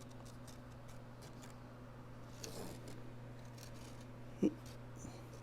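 Quiet room with a steady low hum, light handling rustles and small ticks, and one soft thump about four and a half seconds in.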